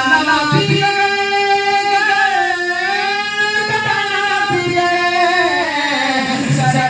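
Solo devotional singing of a naat, one voice holding long, drawn-out notes that bend down and back up in a slow glide midway.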